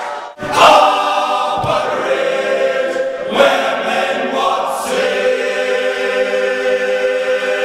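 Male a cappella choir singing loud, full chords, coming in sharply about half a second in. It ends on a long held chord from about five seconds in.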